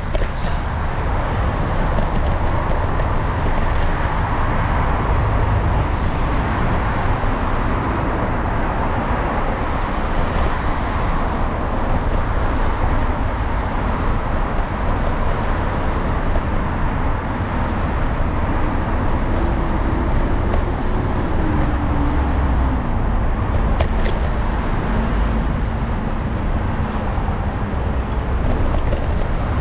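Steady city street traffic: cars and taxis driving past on a wet multi-lane road, with a continuous low rumble. Past the middle, one vehicle's engine note slowly falls in pitch as it goes by.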